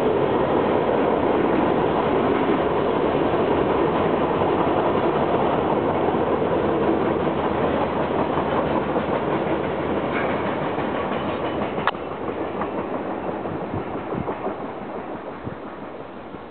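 Freight train cars rolling past on the rails, a steady clattering rumble that slowly dies away over the last few seconds as the train recedes. A single sharp click comes about twelve seconds in.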